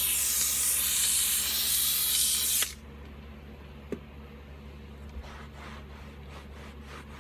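McCulloch steam cleaner jetting steam from its nozzle onto a car headliner, a steady loud hiss that cuts off suddenly about two and a half seconds in. A single click comes near four seconds, then faint rubbing as a microfiber towel wipes the headliner fabric.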